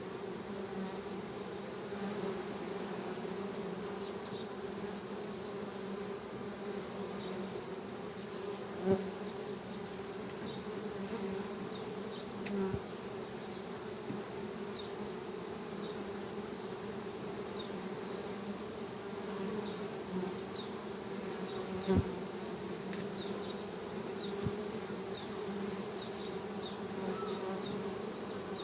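Honey bees buzzing in a steady drone, with a couple of sharp clicks about nine and twenty-two seconds in.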